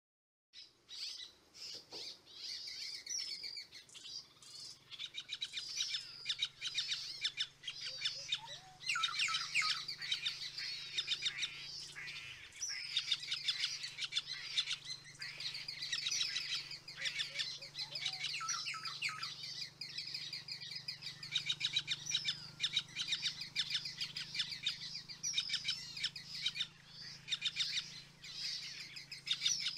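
White-fronted woodpeckers calling: rapid chattering trills, high-pitched and repeated in overlapping bouts almost without a break.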